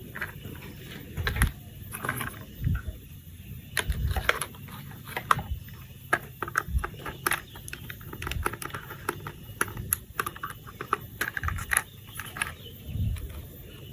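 Hard plastic toy parts being handled and fitted together: irregular clicks and taps, with a few dull thumps.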